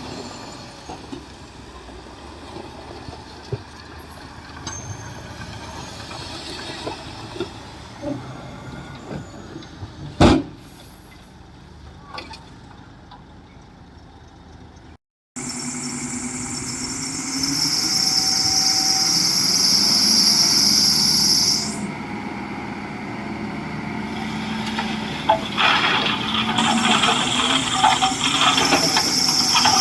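Heavy diesel earthmoving machinery running, with a single sharp knock about a third of the way in. After an abrupt cut about halfway, the machine noise is louder, with a strong hiss that stops and starts again.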